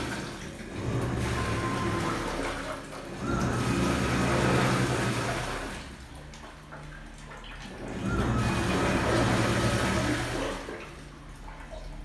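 Panasonic NA-FD85X1 top-load washing machine agitating a load: the motor turns the pulsator in surges of a couple of seconds with quieter pauses between them, and the water in the tub churns and sloshes, with a low motor hum and a faint whine.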